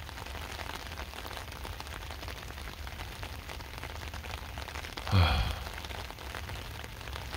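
Steady rain falling on a wet concrete pier, an even hiss dotted with small raindrop taps. About five seconds in, a man makes one short voiced sound that falls in pitch.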